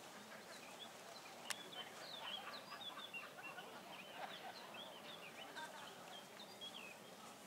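Birds chirping and chattering faintly in quick, short calls, with one sharp click about a second and a half in.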